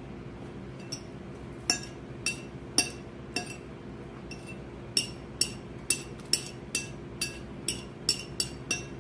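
A utensil clinking against a dish over and over, each strike ringing at the same pitch: a few scattered clinks at first, then about two a second from about halfway in.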